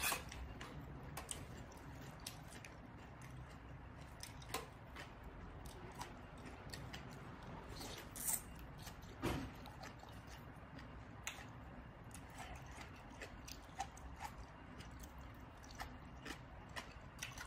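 Close-up chewing and crunching of papaya salad and raw yard-long beans, with many small scattered mouth clicks and a couple of louder crunching bites about halfway through.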